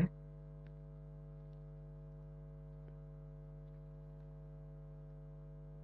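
Steady electrical hum of several steady tones running under the recording, with a few faint ticks.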